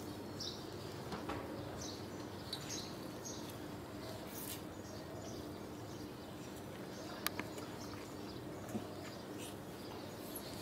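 Hands rubbing and squeezing crumbly flour dough in a stainless steel bowl, a soft rustling and squishing with brief scratchy sounds and a sharp click about seven seconds in.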